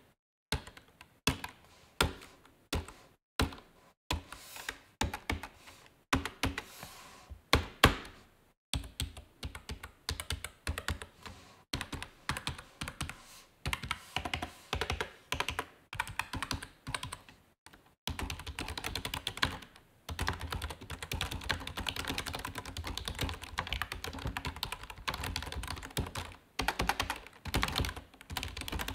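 Cherry KC1000 membrane keyboard being typed on. Separate key presses come about two a second for the first several seconds, then quicker bursts of typing, turning into steady fast typing for the last ten seconds or so.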